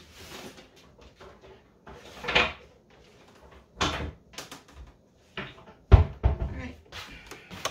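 Hard plastic knocks and clacks from dehydrator trays being handled and set down, with the loudest, deepest thump about six seconds in.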